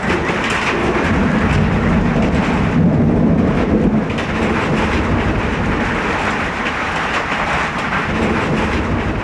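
Thunder rumbling over the steady hiss of a heavy thunderstorm's rain. The rumble is heaviest in the first few seconds and eases after about four seconds.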